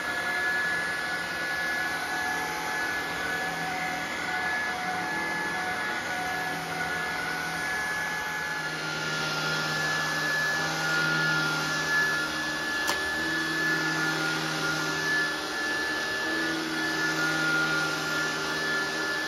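Shark Vertex cordless stick vacuum running with a steady high whine, pushed across hard floor and then across carpet. About nine seconds in, where it moves onto the carpet, a brighter hiss joins the motor, and a single sharp click comes a few seconds later.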